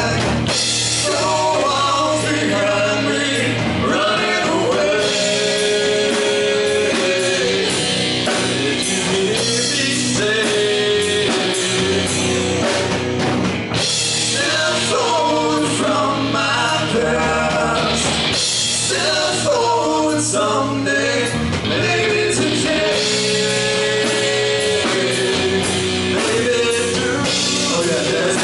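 Rock band playing live: electric guitars, bass guitar and a drum kit with a man singing, loud and steady throughout.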